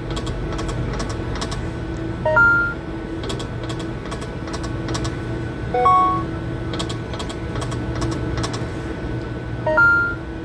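Poker machine spins: a short rising three-note electronic chime about every three and a half seconds, with runs of sharp clicks between them, over a steady machine hum.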